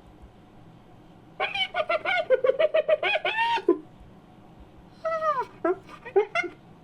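Cave hyena creature sound effect: a rapid run of short, high-pitched yelping calls lasting about two seconds, then after a pause a shorter burst of calls that fall in pitch.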